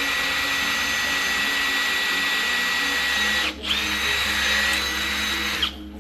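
Electric drill running steadily with a high whine, drilling plug-weld holes in a steel axle sleeve. It cuts out briefly about three and a half seconds in, starts again with the whine at a different pitch, and stops just before the end.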